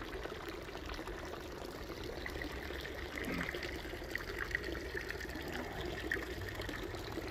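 Water from a street drinking fountain running steadily, a continuous trickling splash.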